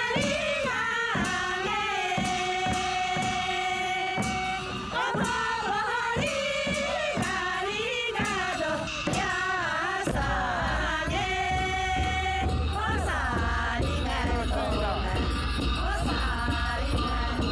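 A folk song sung over steady, regular drum beats. About ten seconds in, heavier, deeper drumming joins.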